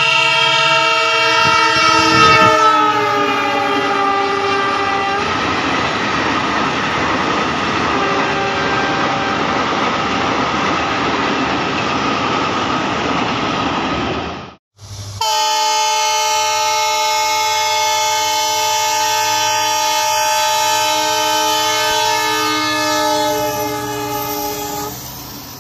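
Indian Railways diesel passenger train passing at speed and sounding its horn. A long blast drops in pitch as the locomotive goes by, then the coaches rattle and rumble past on the track. After a short break comes a second, steady horn blast of about ten seconds.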